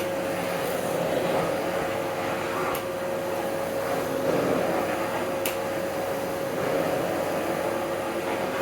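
Hoover Breeze Pets vacuum cleaner running steadily, a constant motor whine with airflow noise, as its plain carpet floor head without a power head sucks up salt from a carpet. There are two faint ticks, about three and five and a half seconds in.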